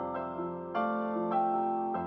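Soft, slow solo piano improvisation: single notes and chords struck about every half second and left to ring.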